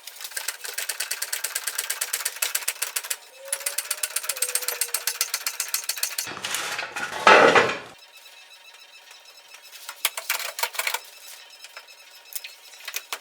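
Rapid clicking of a hand ratchet wrench working a fastener, about nine clicks a second in two long runs and a short one near the end, with a louder rushing scrape lasting about a second in the middle.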